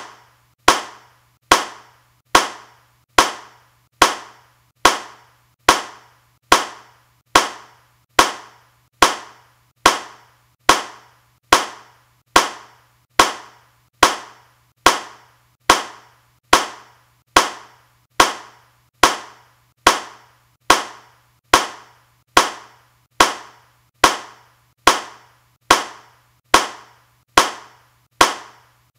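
A single hand clap repeated at an even pace, a bit over one clap a second, each one sharp with a short fading tail. A faint steady low hum lies underneath.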